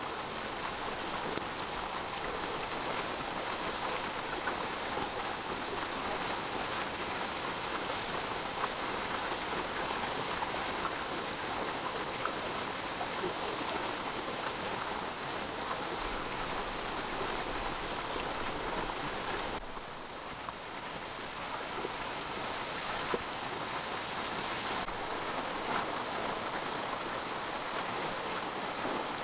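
Steady rain falling in a dense patter. It grows slightly duller for a few seconds about two-thirds of the way through, then returns.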